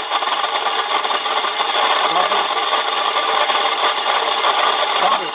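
Starter motor of a 2012 Dodge Journey cranking: a loud, steady rasping whir with no clear pitch.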